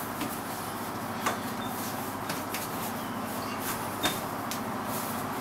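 Hands kneading bread dough on a kitchen worktop: scattered soft knocks and taps as the dough is folded and pressed, the sharpest about four seconds in, over a steady background noise.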